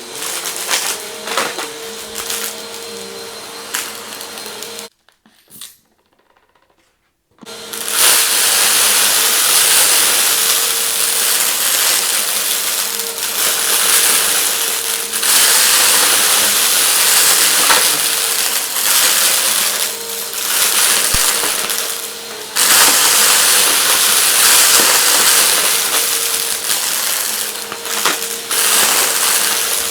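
Vacuum cleaner running, switched off about five seconds in and started again about two seconds later, then running louder with a steady hum and constant crackling and rattling as it sucks up hard debris.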